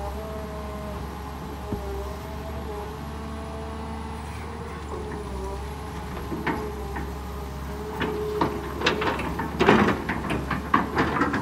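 Kobelco SK200 hydraulic excavator's diesel engine running with a steady hum while the bucket works a tree stump out of the ground. From about six seconds in, a growing run of sharp cracks and knocks comes as the bucket tears the stump and soil loose and lifts them, loudest a little before the end.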